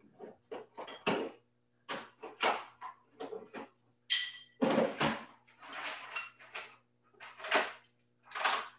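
Rummaging through small parts bins on a shelf: a string of short clatters and clinks as hard parts are moved about and picked out. One clink about four seconds in rings briefly.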